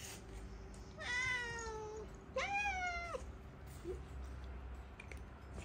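Domestic cat meowing twice, a falling meow followed by a shorter arched one, begging for the treats being handed out.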